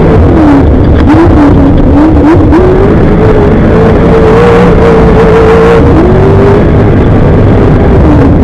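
Off-road race vehicle's engine running hard at speed, very loud, its pitch wavering with the throttle: it climbs a few seconds in, holds high, then drops back. Short knocks and rattles sound over the steady rumble.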